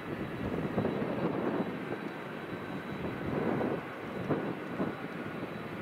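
Jet airliner engines rumbling steadily, the sound swelling and fading slightly.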